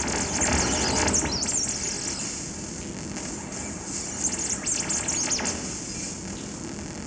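Experimental noise performance: very high-pitched squeals and squeaks that warble and glide up and down over a hiss. They come in two flurries and fade out near the end.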